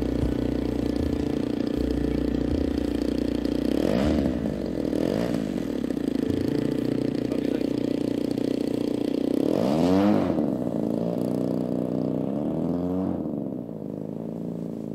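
Great Planes U-Can-Do RC plane's two-stroke gas engine running on the ground, its pitch swept up and back down briefly about four and five seconds in, more strongly around ten seconds, and again near the end. The sound gets quieter near the end as the plane taxis away.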